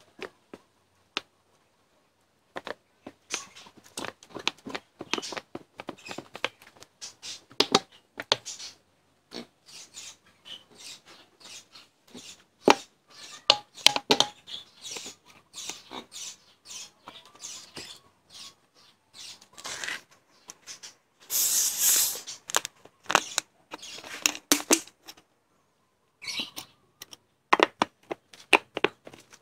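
Thin plastic bottles crackling and clicking in the hand as thick molasses is tipped and squeezed out of them into a plastic bucket, in irregular bursts, with a short louder rush a little past two-thirds of the way through.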